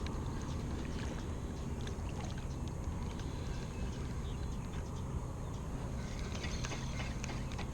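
Steady low rumble of open-air ambience on a fishing kayak, with many light scattered clicks and ticks.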